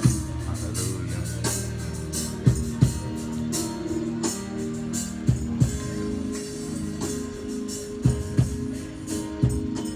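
Instrumental praise-and-worship music: held chords with drum hits landing through it and no singing.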